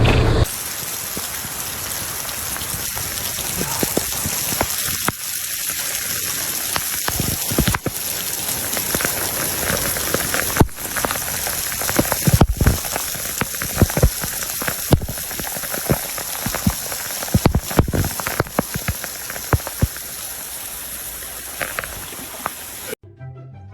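A steady hiss with many scattered ticks and pops, like rain pattering on a surface, that cuts off abruptly near the end.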